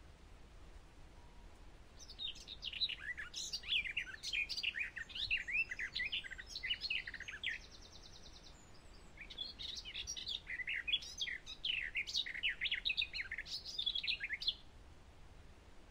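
Eurasian skylark singing: a fast, unbroken stream of high chirping and warbling notes that starts about two seconds in, with a short buzzy rattle and a brief pause midway, then resumes and stops shortly before the end.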